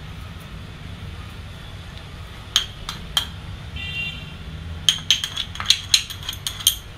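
A spoon clinks against a small glass bowl as salt is tapped out of it into a pot of cutlet mixture. There are three sharp clinks a little over two seconds in, then a quick run of about a dozen clinks between about five and seven seconds, over a steady low hum.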